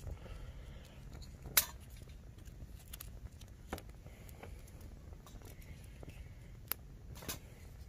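Sticks being fed into a small folding steel wood-burning camping stove: a few sharp clicks and knocks of wood against thin metal, the loudest about a second and a half in, over a low steady rumble.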